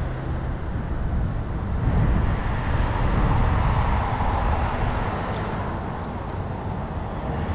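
Road traffic passing while cycling: a vehicle's tyre and engine noise swells and fades in the middle, over a steady low rumble of wind on the microphone.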